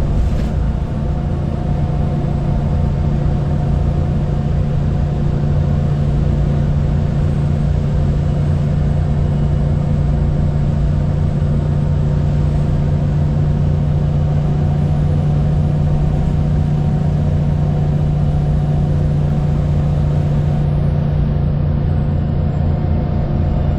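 VDL SB200 Wright Pulsar 2 single-deck bus heard from inside the saloon, its diesel engine and drivetrain running at a steady speed with a constant low drone and road rumble.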